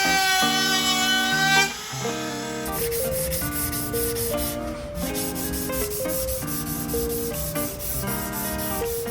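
Wood being sanded: a steady rasping hiss that starts a little under a third of the way in, over background music with held notes.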